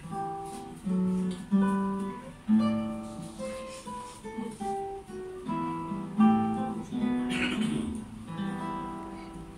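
Acoustic guitar played solo: a slow melody of single plucked notes, each starting sharply and fading, with several notes sounding together at times.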